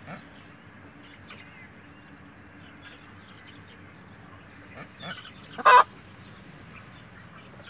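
Poultry calling in a farmyard: faint scattered short sounds, then one short loud call a little past two-thirds of the way through, the loudest sound here.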